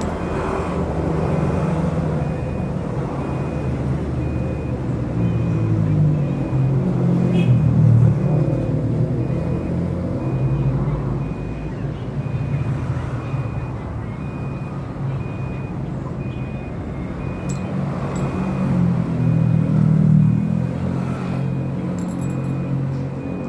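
A motor vehicle engine running, swelling louder twice, with faint regular high beeps repeating throughout.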